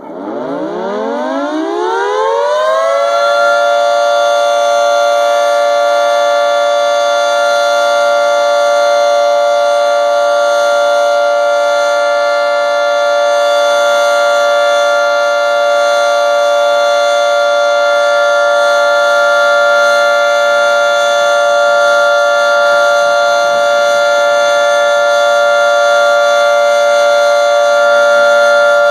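24-horn tornado warning siren winding up, its pitch rising over the first three seconds or so, then holding a steady loud tone: the steady alert signal of a siren test.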